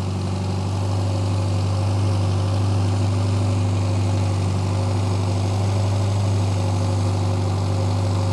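Mini's A-series four-cylinder engine running steadily with an even, deep hum, heard up close under the open bonnet while its twin SU carburettors are being tuned.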